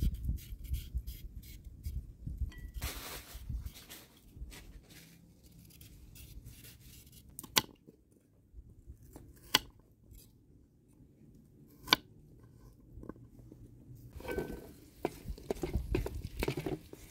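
A carrot being scraped with a peeler, then a knife cutting carrot on a wooden chopping board, with three sharp knocks of the blade on the board. Near the end, a wooden spoon stirs carrot pieces in a metal pan, scraping and clattering against it.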